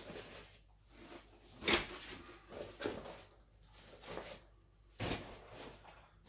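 Rustling and brief knocks as a rolled folding camp cot is pulled out of its Oxford canvas carry bag, with several separate handling sounds, the loudest about two seconds in.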